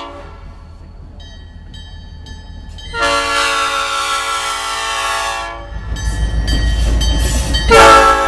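Old Cast Nathan P5 five-chime locomotive air horn blown in blasts: one cuts off at the start, a second sounds for about two and a half seconds from about three seconds in, and a loud third starts near the end. A low rumble comes between the last two blasts.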